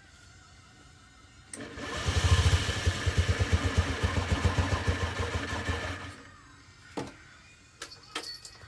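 Small 50cc moped scooter engine turned over on its starter: a click, then a loud rapid pulsing for about four seconds that stops about six seconds in. A few sharp clicks follow near the end.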